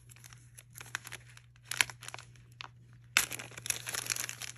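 Plastic packaging crinkling as a piece of jewelry is handled: a few scattered crackles, then a denser run of crinkling from about three seconds in.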